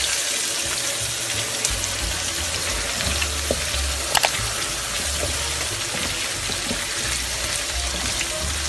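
Potatoes, carrots and small onions sizzling steadily as they fry in oil in a pan, with a wooden spatula clicking against the pan twice about four seconds in.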